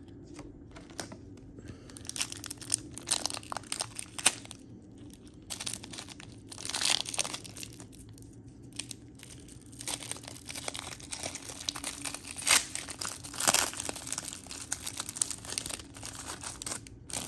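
Wrappers of 1994 Upper Deck All-Time Heroes trading-card packs being torn open and crinkled in the hands, in a string of short rustles with brief pauses between them.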